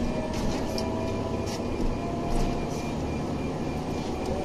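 Inside a Scania OmniLink city bus under way: engine and drivetrain running with a steady whine over low road rumble, with a few brief rattles.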